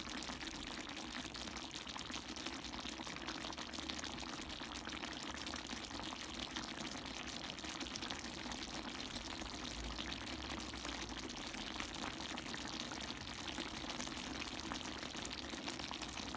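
Chicken and pork adobo simmering in coconut milk in a wide metal pan: a steady bubbling with a fine crackle.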